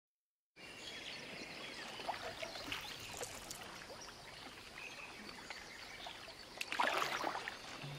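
Water trickling and lapping around a canoe, with a louder splash about seven seconds in.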